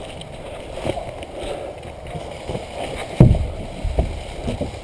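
Footsteps and gear rustling from an airsoft player moving through woods, picked up close on a body-worn camera, with one sharp knock about three seconds in.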